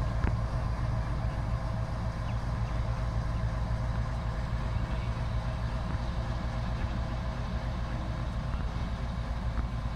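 Diesel engine of a GRU locomotive running at low power as it slowly hauls a dead locomotive: a steady deep drone with a faint steady whine above it.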